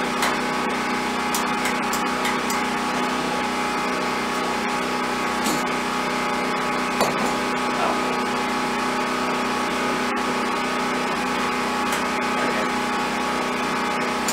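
Portable generator running at a steady speed, an even engine hum, with a few faint clicks.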